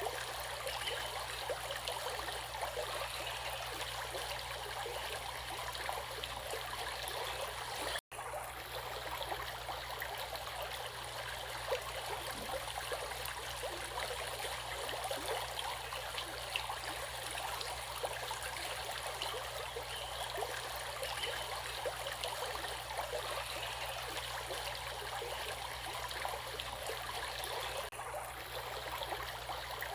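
Water running steadily over rocks in a stream, an even rushing and trickling, with a momentary break about eight seconds in.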